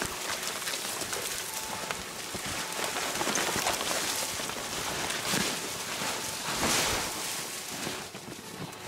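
Dense crackling and scraping of brush and branches against clothing, pack and camera as a hunter forces through a snowy thicket, mixed with boots crunching and sliding in snow. The crackle swells louder a few times where branches are pushed aside.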